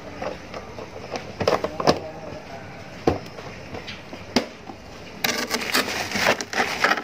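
Household handling noises: a few scattered knocks and clicks, then about two seconds of dense rustling and clattering near the end.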